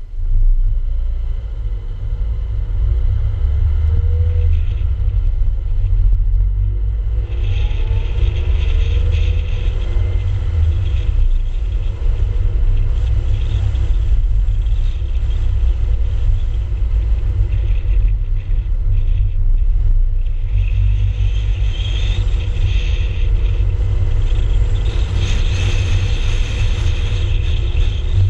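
Car driving along a road, heard through a GoPro: heavy wind rumble on the microphone over road and engine noise, with a faint rising tone about five to eight seconds in. Hiss from the road comes and goes, louder in stretches near the middle and toward the end.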